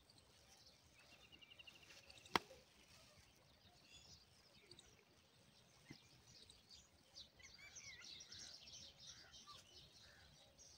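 Near silence with faint birds chirping: a short rapid trill about a second in and a run of high chirps in the second half. A single sharp click a little over two seconds in is the loudest sound.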